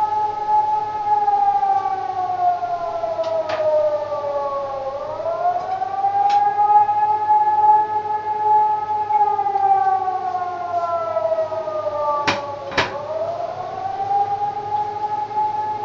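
Civil-defence siren sounding the rising-and-falling howl alarm signal in a test: one loud tone that sinks slowly and swings back up, twice in about eight-second cycles. A few short clicks are heard over it, the loudest a pair about three quarters of the way in.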